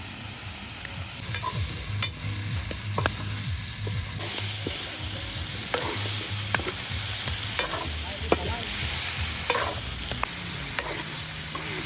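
Food sizzling as it fries in a pan, while a utensil stirs it with clinks and scrapes at irregular intervals. The sizzling grows louder about four seconds in.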